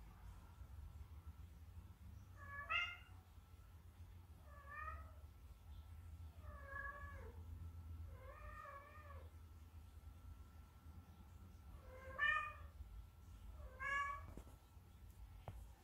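Munchkin short-legged cat meowing six times, each call wavering in pitch, spaced a second or two apart with a longer gap after the fourth: calling for its owner to play. A faint steady high tone hums underneath.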